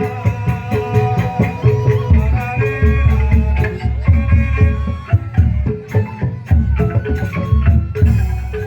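Band music: a held melody line over busy, evenly driving percussion and a heavy bass beat.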